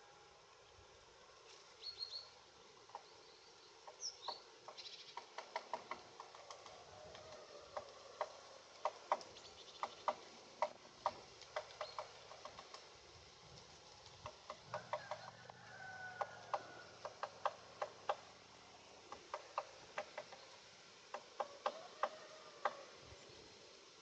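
Great spotted woodpecker pecking at bark with its bill: faint, sharp taps in irregular bouts of a few a second. There are a few short, high bird chirps near the start.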